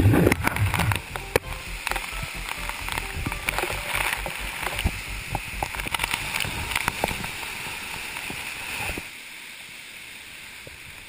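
Waterfall spray pouring over the camera: a rushing hiss with many sharp taps of water drops striking the housing, and heavy buffeting in the first second. About nine seconds in, the sound drops to a quieter, steady hiss.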